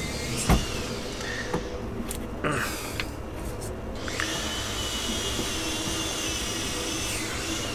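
Metal clicks and knocks from the wheel-steering shaft and its splined sprocket being worked out of the pedestal by hand, the sharpest about half a second in. A steady whirring hum runs underneath throughout.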